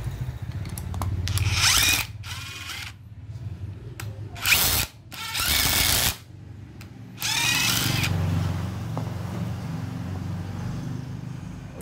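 DeWalt cordless impact driver driving wood screws into a wooden block in about five short trigger bursts over the first eight seconds, its motor pitch rising with each pull.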